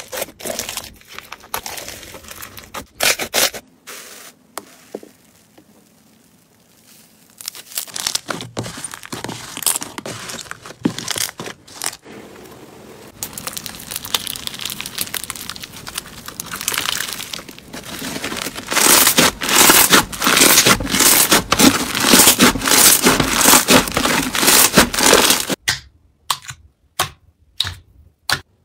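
Hands squeezing and stretching crunchy foam-bead slime (floam): dense crackling and popping of the beads, loudest through the middle, with a quieter spell a few seconds in. Near the end, a few separate pops as a hand presses into clear slime.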